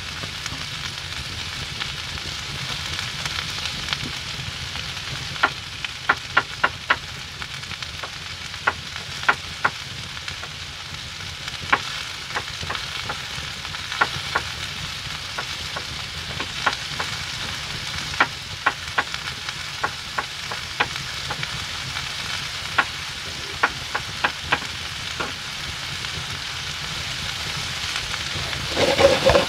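Food sizzling steadily in a hot pan, with sharp clicks and taps scattered through it in small clusters.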